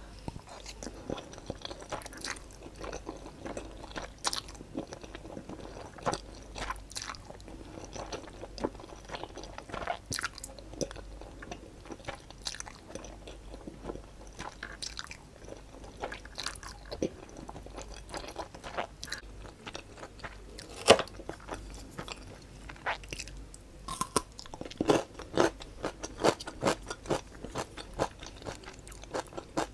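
Close-miked eating of instant black bean noodles: noodles slurped into the mouth and chewed, with many irregular wet mouth clicks and smacks, one sharper click about 21 seconds in.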